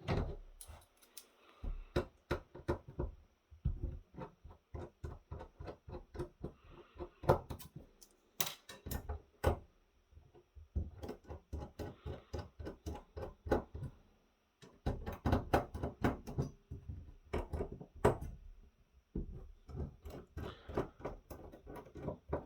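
Quick runs of small clicks and taps from working the bottom support plate off a 3.5-inch floppy drive's metal frame by hand and tool, with brief pauses.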